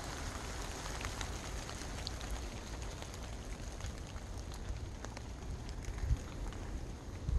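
A hiker's footsteps on a mountain trail going downhill: a steady run of small crunches and crackles underfoot, with a low rumble.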